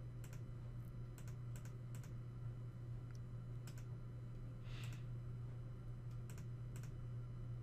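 Faint computer-mouse clicks, a dozen or so spread out, some in quick pairs as double-clicks, over a steady low electrical hum.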